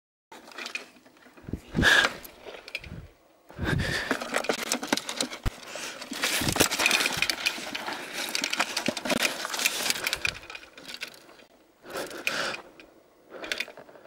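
Rustling, crackling and knocking as a handheld camera is jostled through forest undergrowth, in irregular bursts, loudest and densest from about four to eleven seconds in, with two shorter bursts near the end.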